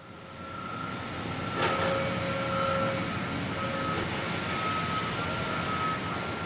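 Steady mechanical noise with a thin high whine held throughout, and a single sharp knock about a second and a half in.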